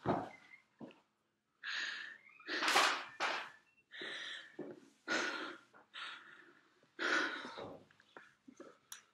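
A frightened person breathing hard in a run of sharp, ragged gasps, about one breath a second.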